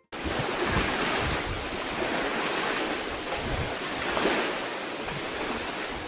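Sea waves washing on a shore: a steady rush of surf that swells about four seconds in.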